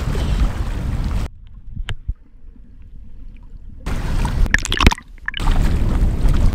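Wind rumbling on the microphone over sloshing sea water, dropping to a much quieter stretch between about one and four seconds in, then returning with a few sharp splashes.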